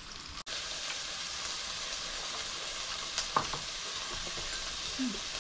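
Meat sizzling steadily in a tabletop electric grill pot as it cooks, with a brief break about half a second in and a single click a little past halfway.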